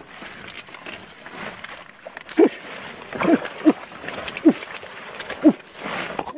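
Hands pushing through water hyacinth stems and wet mud, rustling and squelching. From about the middle, five short calls, each dropping in pitch, come roughly a second apart and are louder than the rustling.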